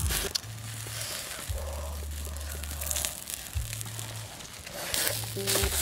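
Open wood fire crackling, with scattered small snaps, under a fish roasting on stick skewers. A low hum comes and goes underneath in separate stretches.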